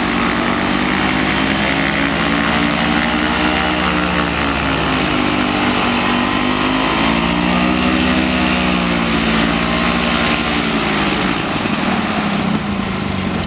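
Rotax 277 single-cylinder two-stroke engine of an Earthstar Laughing Gull ultralight running as the aircraft taxis, its pitch rising and falling twice with the throttle. It fades away near the end.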